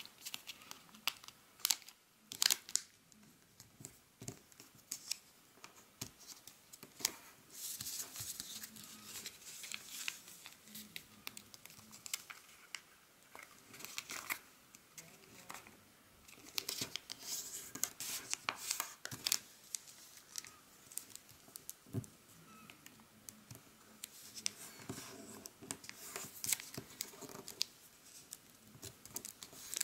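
Origami paper being folded and creased by hand: faint, intermittent crinkling and crackling as the flaps are pressed flat, in several short clusters with quieter pauses between.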